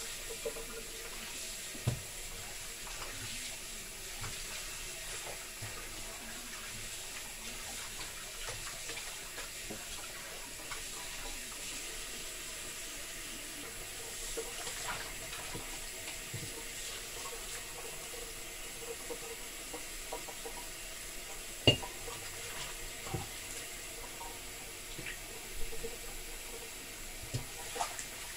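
Kitchen tap running steadily into a stainless steel sink as raw chicken pieces are rinsed and rubbed by hand. A few short knocks come through the water sound, the loudest about two-thirds of the way in.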